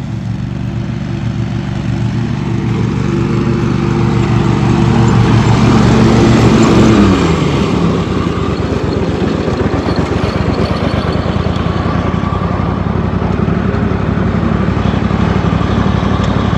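Riding lawn mower engine running, growing louder over the first several seconds. About seven seconds in its note drops, and it runs on steadily at a lower, rougher pitch.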